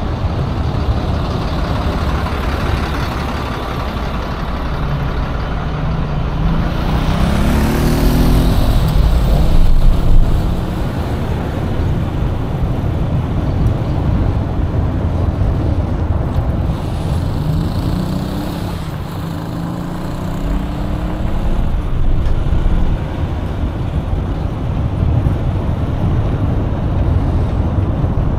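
Road traffic: motor vehicle engines and tyre noise over a steady low rumble. An engine's pitch climbs twice, about seven seconds in and again around seventeen seconds in.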